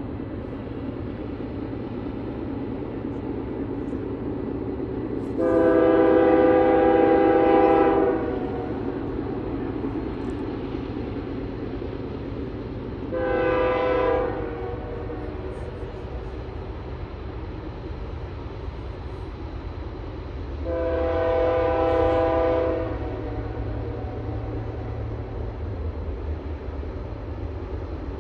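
A freight locomotive's five-chime Nathan K3 air horn sounds a long blast, a short blast and another long blast, the end of a grade-crossing signal. A steady diesel rumble from the approaching train grows louder toward the end.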